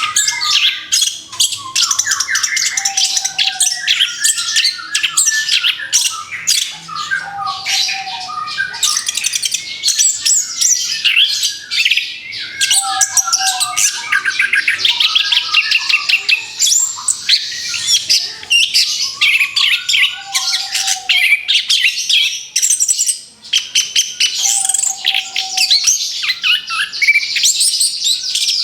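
Orange-headed thrush (anis kembang) song: a fast, continuous, varied warble of high chirps and trills, with a short lower whistled note recurring every four or five seconds. It is a 'therapy' song recording, played to a caged thrush just out of its moult to get it singing again.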